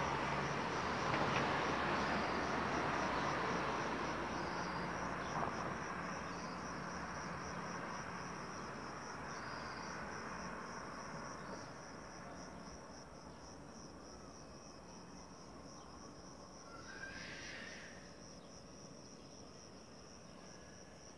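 Siemens Desiro electric multiple unit fading into the distance as it pulls away, its rumble dying out over roughly the first ten seconds. Under it runs a steady, high, pulsing chirr of insects.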